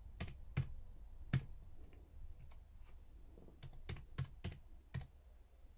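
Computer keyboard being typed: a few separate keystrokes, then a quicker, uneven run of keys near the end.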